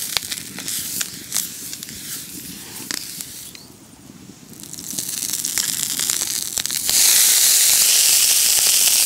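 Water on a hot dosa tava sizzling and crackling, dying down a few seconds in. It then builds into a loud, steady hiss from about seven seconds in, as more water is sprinkled on the plate and flashes to steam. The water tests and tempers the tava's heat before the batter is spread.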